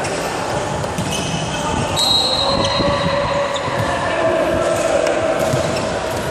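Volleyball court in a sports hall: a volleyball bouncing on the wooden court floor, short high squeaks of shoes, and players calling out, all echoing in the large hall.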